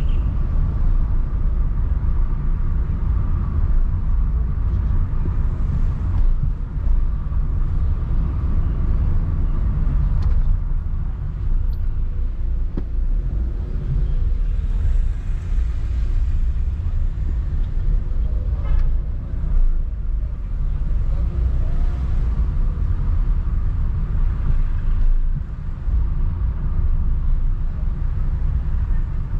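Car driving through city streets: a steady low rumble of engine and road noise, with small rises and dips as it moves through traffic.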